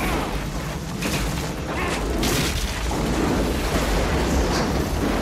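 Film sound effects of a spacecraft crash: a heavy, continuous rumble with crashing impacts, sharpest about one and two seconds in.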